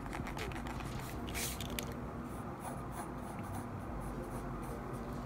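Mechanical pencil lead scratching on sketchbook paper in a run of short strokes, with one longer stroke a little over a second in.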